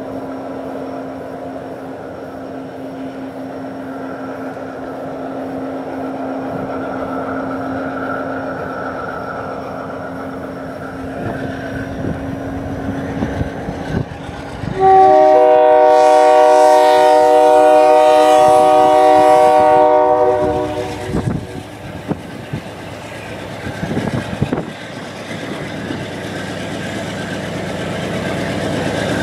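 GE C40-8 diesel-electric locomotive with its 16-cylinder engine running as it approaches with a freight train, a steady drone. About halfway through, its multi-note air horn sounds one long blast of about five seconds, the loudest sound. Engine and wheel noise grow louder near the end as the train draws close.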